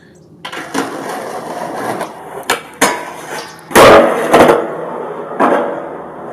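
Skateboard wheels rolling on concrete, broken by sharp wooden clacks as the board is popped and lands, the loudest hit about four seconds in.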